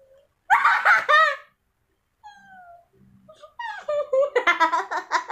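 Girls laughing: a loud, high, wavering laugh about half a second in, then a run of rapid rhythmic laughter from about three and a half seconds in.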